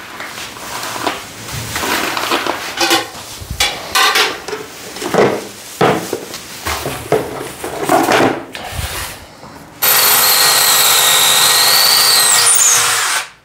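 A hand rummages through a plastic organizer box of screws and wall plugs, the small parts clattering and rattling. About ten seconds in, a cordless drill drills into a gypsum wall, running steadily with a high wavering whine for about three seconds before it stops sharply.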